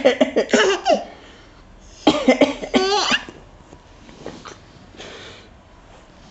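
An adult coughs and a baby about six months old answers with bouts of high-pitched laughter. This happens twice, once at the start and again about two seconds in, with a fainter cough or breath near the end.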